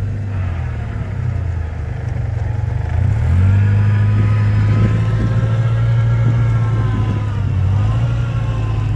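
Engine of an off-road 4x4 rig working hard as it pushes through deep snow. The revs rise about three seconds in and are held high, with a brief dip near the end.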